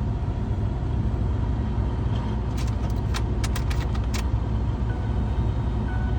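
A vehicle engine idling with a steady low rumble, with a quick run of sharp clicks about midway and short, high beeps about once a second near the end.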